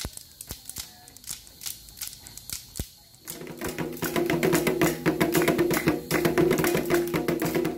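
Thin wooden sticks tapping a few scattered times, then from about three seconds in, atabaque drums beaten with thin sticks in a fast, steady rhythm, with dense clicking and a steady low tone underneath.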